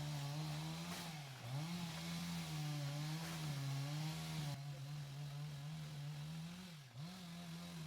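Chainsaw engine running, its pitch wavering up and down as it works and dropping sharply twice, about a second and a half in and near the end.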